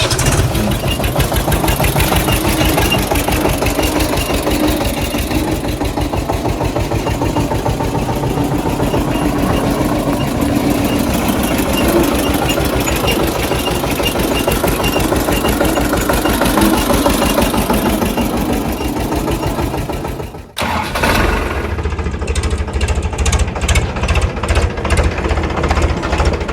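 Engine of a tractor or backhoe loader running with a fast, even beat. About twenty seconds in it drops out briefly and a second engine sound takes over, with heavier, more distinct low beats.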